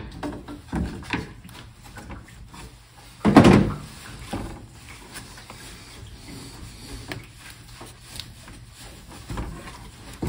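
Hands and pliers working a rubber radiator hose and its clamp loose on the radiator neck: scattered clicks and knocks of handling, with one louder thump about three and a half seconds in.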